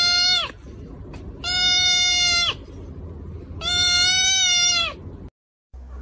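Kitten crying out three times as a finger pokes its head: long, even, flat-pitched cries of about a second each, with short gaps between them.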